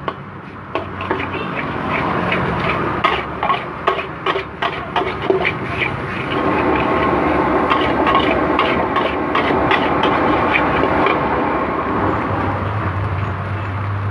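Metal spatula clanking and scraping against a wok in quick, irregular strokes for about six seconds. Then a steady rushing noise of stir-frying over the burner with occasional clinks, and a low hum joins near the end.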